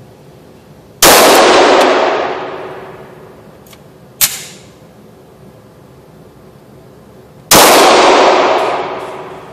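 FN Five-seven pistol firing 5.7×28mm rounds: two single shots about six and a half seconds apart, each ringing out with a long echoing tail off the indoor range's walls. A shorter, sharper crack comes between them, about three seconds after the first shot.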